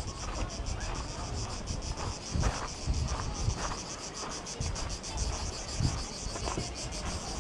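Cicadas in the pine trees buzzing in a fast, even pulse of about five to six beats a second, over irregular crunching footsteps on gravel and a low wind rumble on the microphone.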